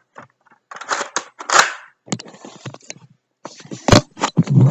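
Handling noise from a toy foam-dart blaster: plastic rustling, scraping and clicks, then a sharp loud knock about four seconds in and a few heavier knocks near the end.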